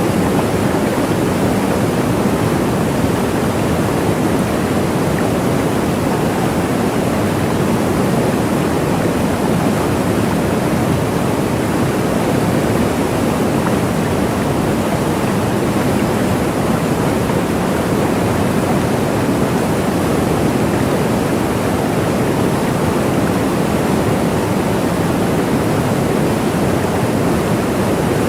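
Waterfall: a steady, even rush of falling water, fullest in the low-to-middle range, with no change.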